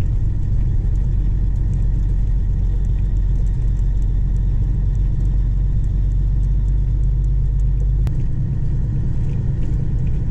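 Peterbilt 379 truck's 550 bhp diesel engine running as the truck drives along, a steady low rumble. A single sharp click comes about eight seconds in, and the deepest part of the rumble changes after it.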